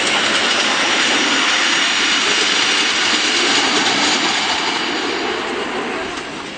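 Steam hissing loudly and steadily from a miniature live-steam locomotive, fading away near the end.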